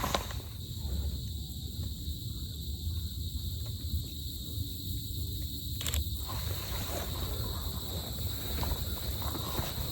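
Forest insects buzzing steadily in several high-pitched bands over a low rumble, with two sharp clicks, one at the start and one about six seconds in.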